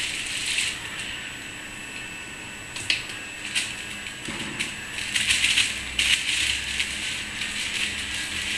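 Rustling and crackling of a kittens' play tunnel as they scramble in and against it, with a few sharp clicks, busier from about five seconds in.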